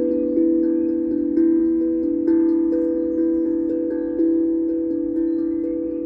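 Tongue drum played slowly, a note struck every half second or so, each ringing on under the next in a gentle, unhurried melody.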